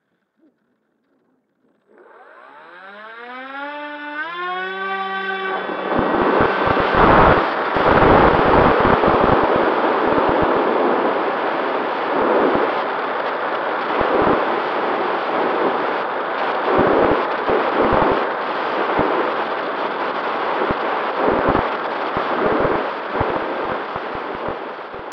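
Mini Talon RC plane's electric motor spinning up, its whine rising in pitch over about three seconds, then loud wind rush and buffeting on the plane's onboard camera microphone in flight, with the motor's steady hum underneath.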